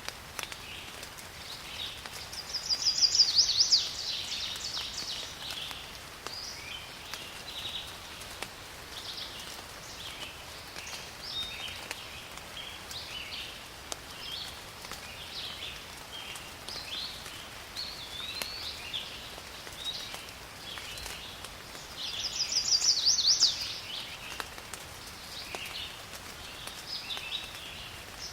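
Forest ambience: birds chirping on and off throughout, with two loud, rapid trills about twenty seconds apart, over a steady hiss of rain.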